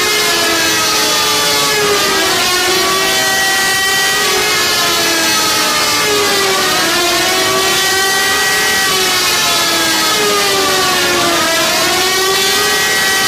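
Electronic alarm tones, several overlapping pitches sliding down and back up every few seconds, loud and unbroken.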